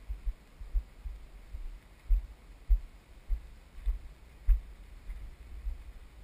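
Dull low thumps about twice a second, with a few faint clicks: the footsteps and handling bumps of someone walking with a handheld camera.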